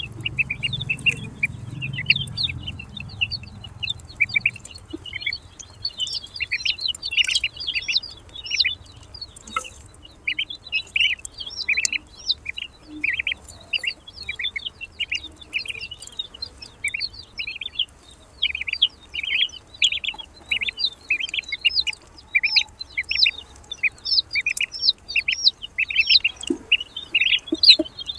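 Several newly hatched ducklings peeping in a steady stream of short, high-pitched calls, many overlapping, with no pause.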